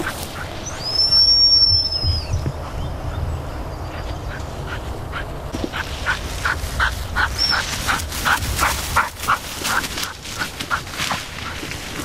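A handler's dog whistle blown once, a single slightly wavering high note almost a second long, with a short toot later on, directing a flushing spaniel working the cover. In the second half comes a quick run of short rhythmic sounds, about three a second, fitting the spaniel's hard breathing as it hunts close through the grass.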